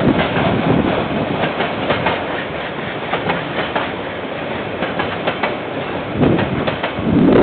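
KiwiRail container freight train rolling past, its wagon wheels clicking irregularly over the rail joints, growing louder near the end.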